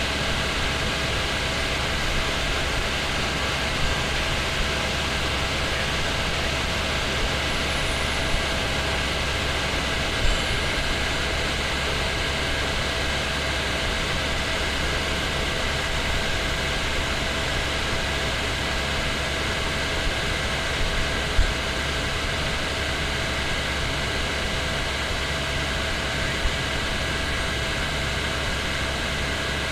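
Helicopter in flight, heard from inside the cabin: a steady, unbroken engine and rotor noise with a constant low drone and several steady hum tones.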